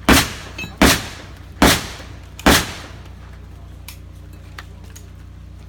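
Four shotgun shots in quick succession, about 0.8 s apart, each with a short echoing tail. A couple of faint clicks follow.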